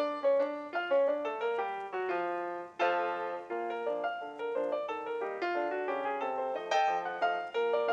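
Piano music: a steady run of struck notes, several sounding together.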